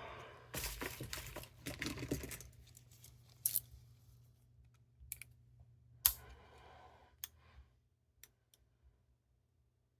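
Handling noises of small objects: a couple of seconds of crinkly rustling, then a string of separate sharp clicks and taps that thin out near the end, as a small CR2016 coin-cell clock battery and its packaging are handled for a camera repair.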